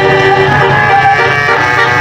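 Bus telolet basuri horn playing a melody: several steady horn tones sounding together and stepping from note to note.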